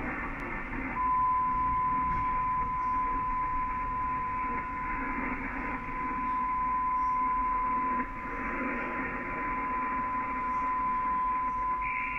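Yaesu FTDX3000 HF transceiver receiving on 40-metre lower sideband: steady band-noise hiss through the speaker, cut off at the top by the narrow sideband filter. About a second in, a steady whistle joins it: an unmodulated carrier on the frequency, beating against the receiver.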